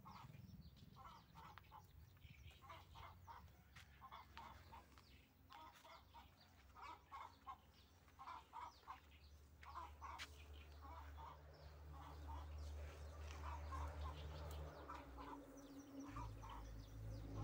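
Chickens clucking faintly in short repeated calls, over a low steady hum.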